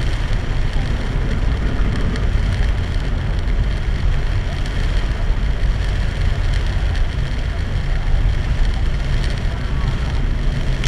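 Heavy rain hitting the car, with steady road and tyre noise, heard from inside the cabin through a dashboard camera.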